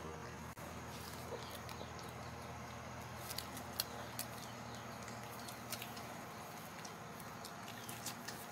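Puppies suckling from their mother, with scattered short wet smacking clicks, the sharpest a little under four seconds in, over a steady low hum.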